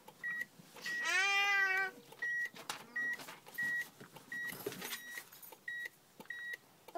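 Steady electronic beeping, short high beeps about one and a half a second, with a small child's drawn-out vocal sound about a second in.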